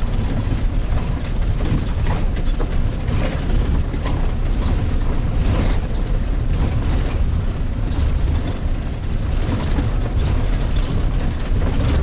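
Cabin noise of a vehicle driving over a rough dirt track: a steady low rumble of engine and road, with irregular rattles and knocks from the jolting bodywork.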